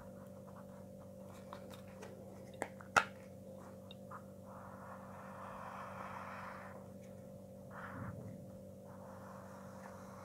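A felt-tip marker rubbing along paper as a pattern line is traced over. A sharp click comes about three seconds in, and a faint steady hum runs underneath.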